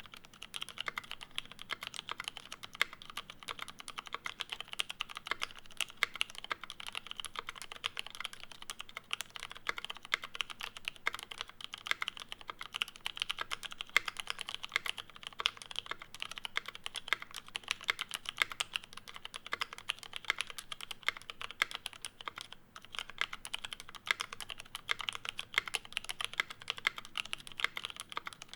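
Continuous typing on a custom mechanical keyboard: a brass-cased Bauer kit with lubed, filmed Cherry MX Brown tactile switches on an aluminium plate, under GMK keycaps, with no dampening. Fast, dense keystrokes, with a short pause about two-thirds of the way through.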